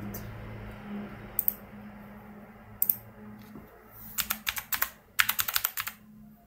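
Typing on a computer keyboard: a quick run of keystrokes starting about four seconds in, after two single clicks earlier on.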